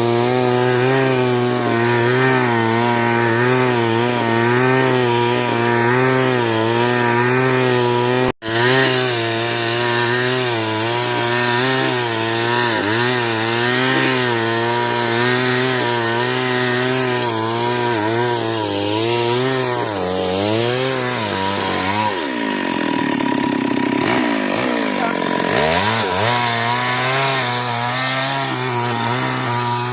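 Two-stroke chainsaw running hard and cutting wood, its engine pitch wavering evenly up and down. A little over a quarter of the way in the sound breaks off for an instant. Near the end the pitch sags well down for a few seconds and then climbs back, the saw loading down in the cut.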